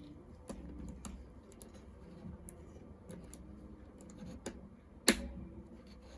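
Small plastic clicks and taps of Lego pieces being handled and pressed together, with one sharp, louder click about five seconds in as a piece snaps on.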